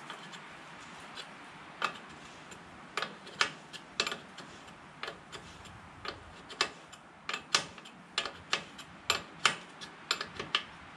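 Sharp, uneven clicks and taps of an oil line's end fitting being handled and fitted at a dry-sump oil tank, sparse at first and coming thick and fast from about three seconds in.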